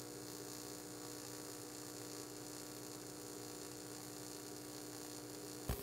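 AC TIG welding arc on aluminum plate, from a Lincoln Electric Precision TIG welder, giving a steady hum and hiss while a bead is run and filler rod is dipped into the puddle. Near the end there is a short sharp crack, and the hum stops.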